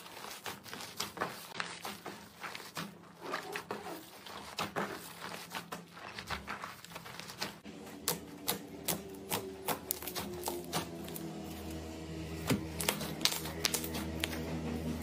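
Slime being squeezed, poked and pressed by hand, giving a rapid, irregular stream of small crackles and pops.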